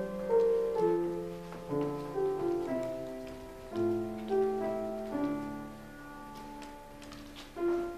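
Slow piano music: a melody of single struck notes over low chords, each note fading after it is struck.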